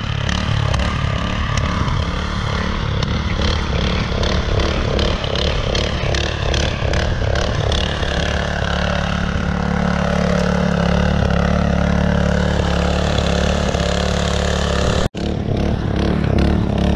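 Honda GP160 single-cylinder four-stroke engine on a rear-tine rotavator running under load while its tines churn through soil, with a clattery, uneven first half that settles to a steadier drone. The sound breaks off for an instant about 15 seconds in, then carries on.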